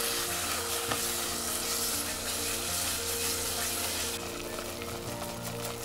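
Thick curry masala paste sizzling in a pot as it is stirred with a wooden spatula, a steady frying hiss that turns to sharper crackling about four seconds in.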